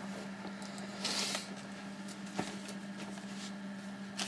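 Handling noise from a video camera being moved: a brief rustle about a second in and a few soft knocks, over a steady low hum.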